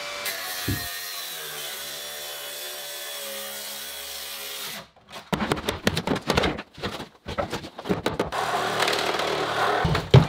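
Cordless angle grinder running steadily as it cuts into an MDF kitchen cabinet, its pitch dipping a little as the disc bites. It stops after about five seconds, and a hammer bangs repeatedly on the cabinet, cracking and breaking the panels.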